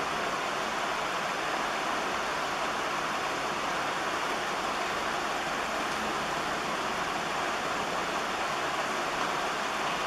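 Steady, even hiss with no distinct events; no chirps or pecking stand out above it.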